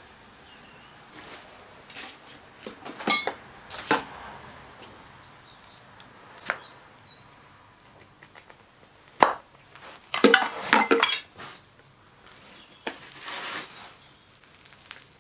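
Sharp metallic taps and clinks from a thin metal hand tool worked in the green-sand cope of a wooden moulding flask, with a quick rattle of taps about ten seconds in. Near the end, a softer scraping rustle as the cope is lifted off the drag.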